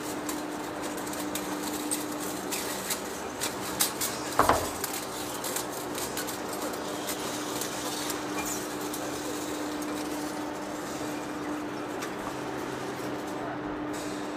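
Large engine lathe running with a steady hum while its tool cuts a big steel cylinder, scattered ticks from the cut; one louder clank about four and a half seconds in.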